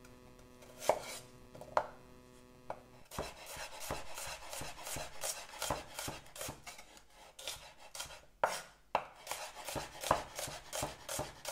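Chef's knife slicing an onion on a wooden cutting board: a few separate knocks of the blade on the board, then a quick, steady run of cutting strokes from about three seconds in.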